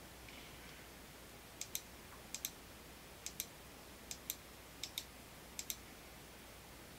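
Faint computer mouse clicks: six quick pairs of clicks, each a button press and release, spaced evenly about three-quarters of a second apart, over a low steady hum.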